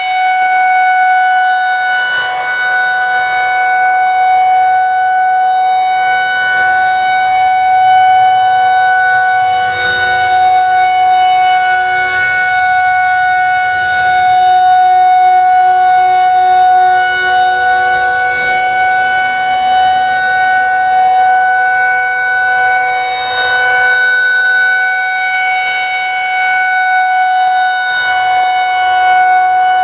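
Federal Signal 2001-130 outdoor warning siren sounding a steady tone, the Alert signal. It holds one pitch while its loudness swells and dips gently as the rotating head turns.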